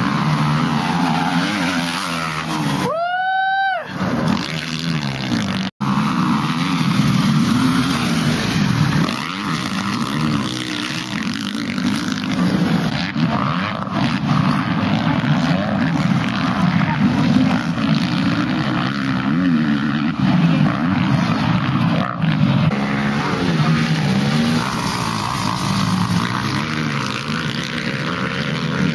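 Motocross dirt bike engines running and revving hard as riders race around the track, the pitch rising and falling with the throttle. About three seconds in, a single engine is heard alone as it revs up and back down, and the sound cuts out for an instant near six seconds.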